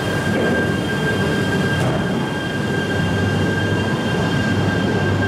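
E3-series Tsubasa shinkansen pulling out along the platform after being uncoupled: a steady train rumble with a constant high tone over it.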